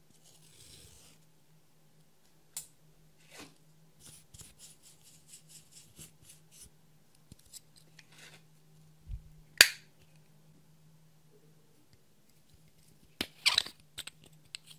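Close-up handling of slime and makeup: scattered small clicks and crackles, a quick run of soft clicks at about four a second, one sharp loud snap about halfway through, and a tight cluster of snaps near the end.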